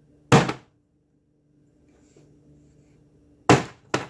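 A rubber mallet strikes wet acrylic paint poured on a canvas board, splattering it. There are three sharp hits: one just after the start and two in quick succession near the end.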